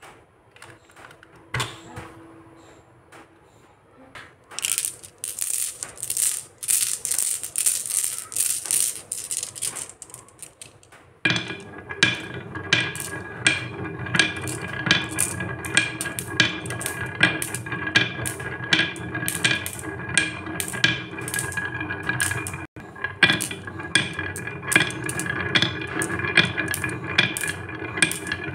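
Glass marbles clicking and rattling on a carved wooden wavy marble track. From about eleven seconds in, background music with a steady beat comes in under the clicking.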